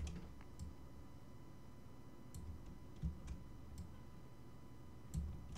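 A few faint computer mouse clicks scattered through, with two soft low thumps about three and five seconds in.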